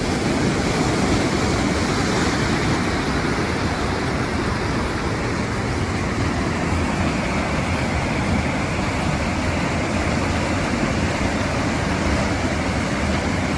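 A river in flood running high and fast, an even, unbroken rush of water with no change in level.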